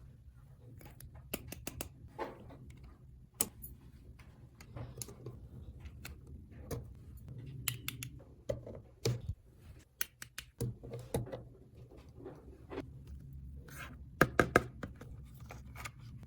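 Small plastic toy pieces handled: scattered light clicks, taps and scrapes, with three sharp clicks in quick succession about fourteen seconds in.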